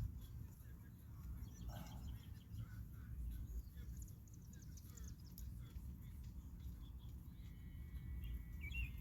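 Faint clicks and rustles of hands working the wiring on an e-bike, over a steady low rumble, with a bird chirping a few times near the end.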